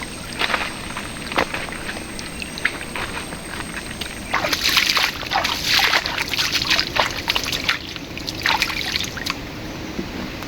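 Shallow river water splashing and sloshing in many short irregular strokes, growing louder from about four seconds in for a few seconds.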